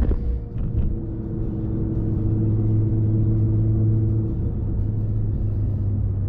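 Motor vehicle running, its engine giving a steady low hum that shifts in pitch near the end.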